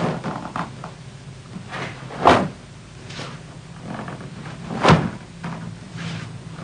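Two short, sharp sounds about two and a half seconds apart, made by a karateka's body and uniform while performing the open-hand moves of Shisochin kata, over a steady low hum.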